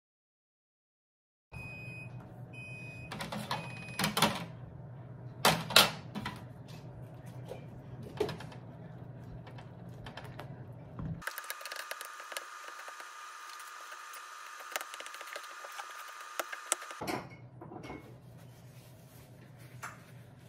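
A wooden spoon knocking and scraping against a large ceramic suribachi bowl as curry and rice are stirred together. A few short electronic beeps come just before it, and in the middle a steady high hum with hiss takes over for several seconds.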